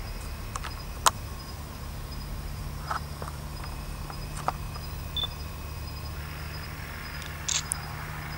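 Quiet night-time outdoor ambience: a faint steady insect drone over a low hum, broken by a few sharp clicks of camera handling, the loudest about a second in.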